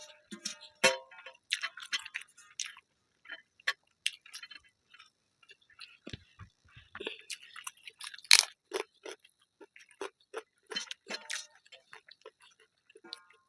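Close-up eating sounds: chewing and smacking, with irregular small clicks and crunches and a sharper, louder click about eight seconds in.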